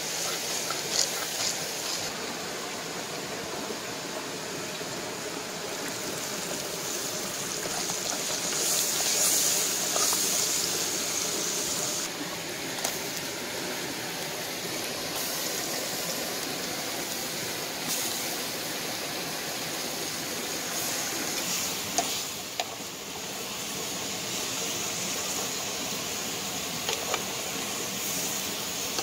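Steady sizzling hiss of a chilli-and-garlic paste, then oyster mushrooms, frying in a small clay pot over a wood fire, with a few sharp clicks of a wooden spoon against the pot.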